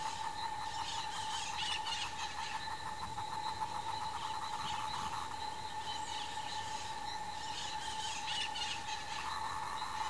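A steady insect drone, with a fast even pulsing trill over roughly the first half. High chirps come in two clusters, about a second in and again near the end.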